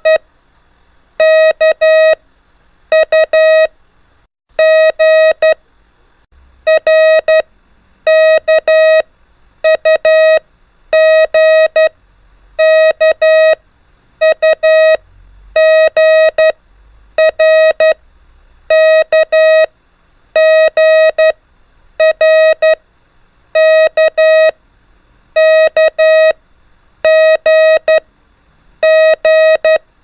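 Morse code practice tone, a single steady beep pitch keyed in short dots and dashes, sending the letters R, K, U and G one at a time, about one three-element letter every second and a half to two seconds.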